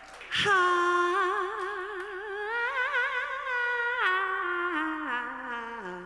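A woman singing solo and unaccompanied: one long wordless note that comes in about half a second in and is held with a wide vibrato, rising slightly. From about four seconds in it steps down in pitch in a slow descending run.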